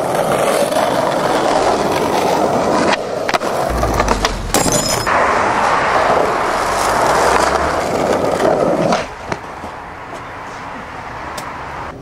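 Skateboard wheels rolling over rough street asphalt: a loud, steady gritty rolling noise, broken by a few sharp clacks of the board a few seconds in. The rolling noise drops away about nine seconds in.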